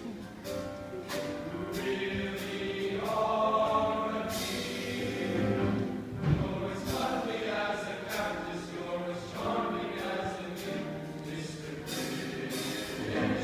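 Men's choir singing, holding and moving between long notes.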